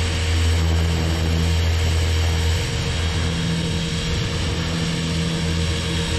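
Align T-Rex 500 XT electric RC helicopter in flight: a steady drone from its rotor and motor, with the level dipping slightly a few times, over a constant hiss.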